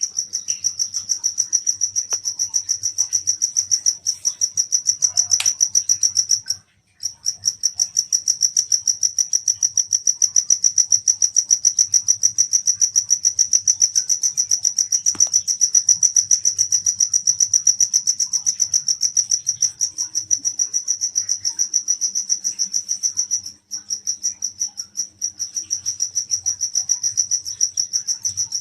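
Cricket singing close by: a loud, high-pitched song of rapid, even pulses. It breaks off briefly about a third of the way in and falters once near the end.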